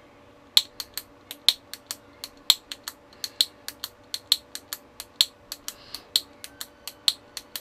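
Push-button on/off switch on a clip fan's power cord pressed over and over with a thumb, giving a rapid run of sharp plastic clicks, about four a second. The clicking shows that the switch, which had been stuck with no click, works again after tapping and penetrating oil.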